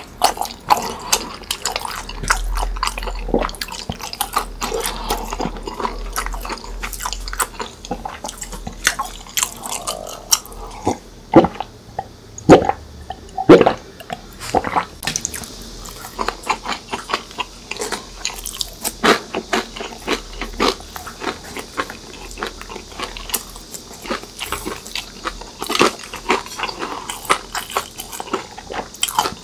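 Close-miked eating sounds: wet chewing and swallowing of food, with gulps of a drink partway through.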